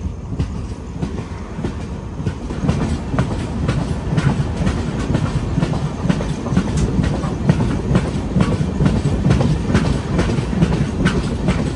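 Devagiri Express passenger coach running on the track, heard from the coach doorway: a steady wheel rumble with rapid clicks of the wheels over rail joints and points. It grows a little louder after the first couple of seconds.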